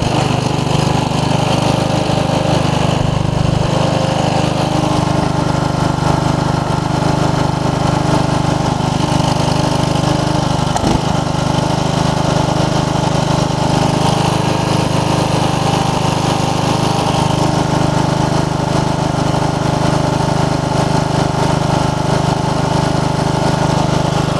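15 hp OHV Briggs & Stratton engine of a riding mower running steadily at an even speed.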